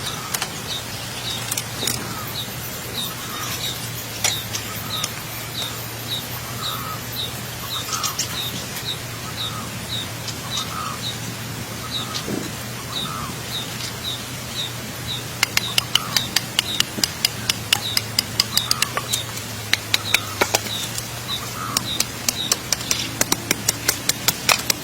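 A small bird chirping over and over, about twice a second, over a steady low hum. About two thirds of the way in, a fast run of sharp clicks or taps starts.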